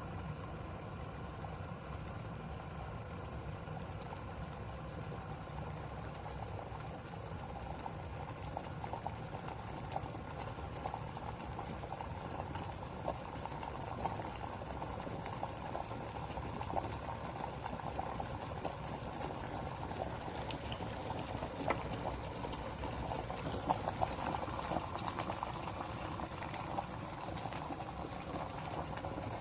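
Glass electric kettle heating water toward the boil: a steady low rumble with bubbling, and small pops and crackles that come more often and a little louder as it goes on.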